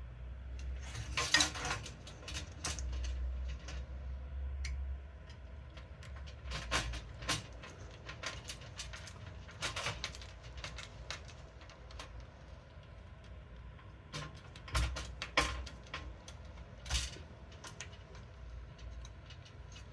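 Scattered clicks and light metallic clinks of a screwdriver and small screws being handled while working on a computer's motherboard and case, with a few louder knocks about a second in and near the three-quarter mark.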